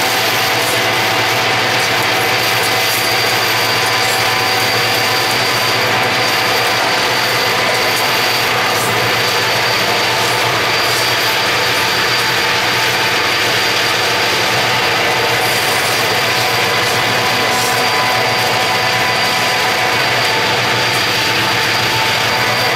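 Steady running noise of a moving vehicle pacing a freight train: road and wind rush blended with train noise, with several constant whining tones.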